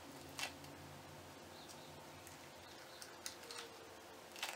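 A few short, sticky crackles as a dried glitter peel-off mask is pulled away from the skin, over a faint steady hum.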